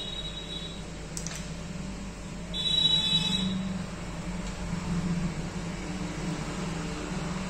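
A steady low hum, with a short high electronic beep about two and a half seconds in and a faint click just after one second in.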